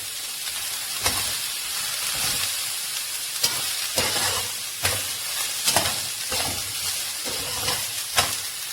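Chopped vegetables sizzling in oil in a pan while being stirred, with the spoon knocking and scraping against the pan several times at irregular intervals.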